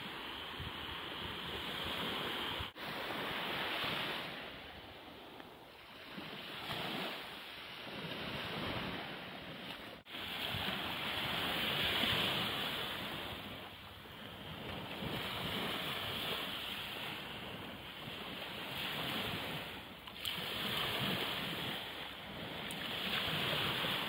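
Surf on a sandy beach: waves breaking and washing in, swelling and fading every few seconds. Two instant dropouts, about three and ten seconds in.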